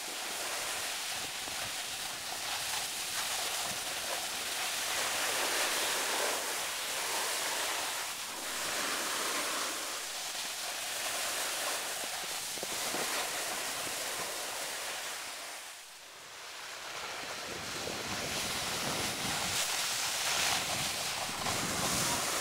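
Steady rushing hiss of a snowboard sliding over snow, mixed with wind, swelling and fading, with a brief dip about sixteen seconds in.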